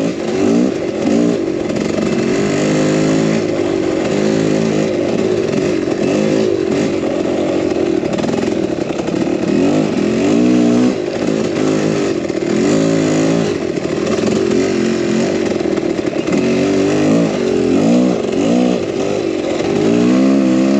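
Dirt bike engine under way, its revs rising and falling again and again as the rider works the throttle along the trail, with a steady rush of wind noise underneath.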